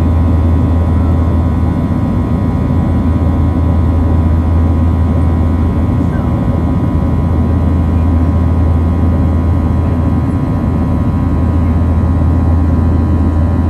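Cabin noise inside a Boeing 737-700 with its CFM56-7B jet engines running: a loud, steady low drone with several steady whining tones above it.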